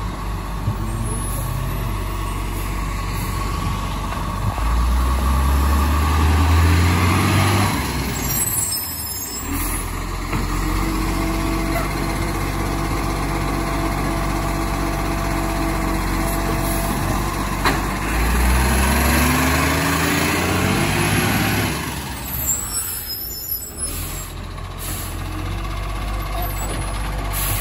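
Iveco Acco side-loader garbage truck running at the kerb: the engine revs up twice, each time rising in pitch for a few seconds as the hydraulic arm works the wheelie bin, and each rev is followed by a short air-brake hiss.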